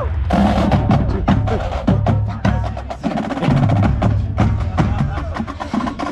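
Drum corps brass and percussion playing: low contrabass bugle notes under many sharp, fast percussion hits, coming in loud about a third of a second in.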